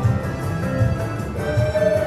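Tokyo DisneySea's Deepwater Area background music from the area loudspeakers: held orchestral tones over a soft, regular low beat, with a higher note coming in about one and a half seconds in.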